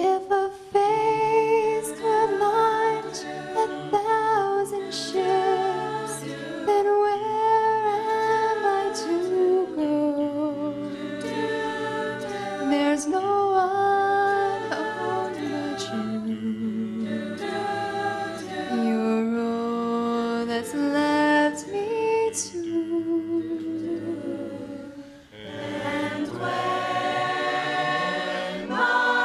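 Choir singing in several parts behind a female soloist. About 25 seconds in the singing briefly drops away, then the full choir comes in louder.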